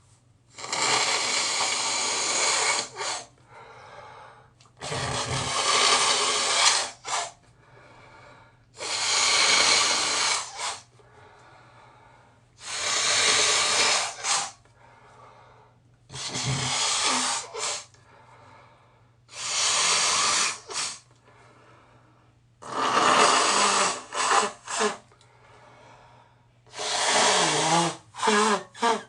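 A person blowing a congested nose hard into a tissue: eight long, wet blasts a few seconds apart, several ending in one or two short extra puffs, with a honking tone in the last blows.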